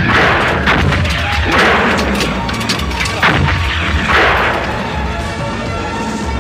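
Battle soundtrack of repeated cannon blasts and explosions with scattered gunfire. Music with held notes comes in about five seconds in.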